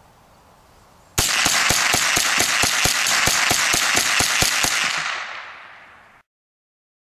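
Remington 597 Yellow Jacket semi-automatic .22 rifle fired in rapid succession: about sixteen sharp shots at roughly four a second, starting about a second in, with the echo fading out after the last one.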